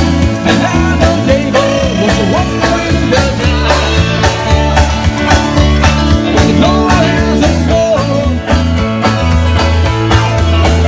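A rock band playing a country-tinged rock song: drums keeping a steady beat under bass, guitar and a bending melody line.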